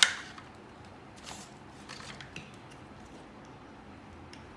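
Plastic toy packaging being handled: one sharp click at the start, then a few soft rustles.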